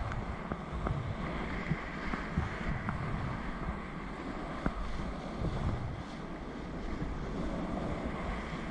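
Rushing whitewater of a fast rapid churning around a whitewater kayak's bow, with scattered short splashes and wind noise on the microphone.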